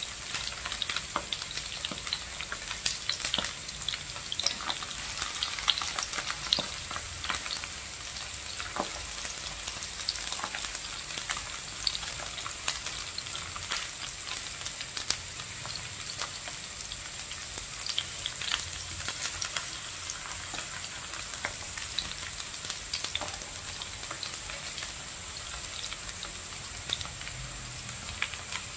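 Eggplant slices frying in hot oil in a nonstick pan: a steady sizzle with many small crackles and pops, while metal tongs turn the pieces.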